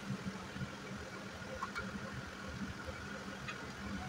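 A steady low mechanical hum over a faint even hiss, with a few faint taps.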